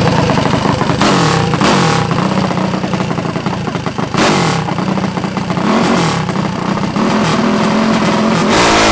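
Minibike's small gas engine running, with a few short revs: about a second in, twice more, and near the end.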